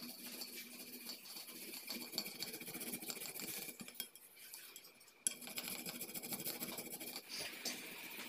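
Soft, wet rasping of a boiled beetroot rubbed in quick strokes across a flat handheld metal grater, with a brief pause a little past halfway before the grating resumes.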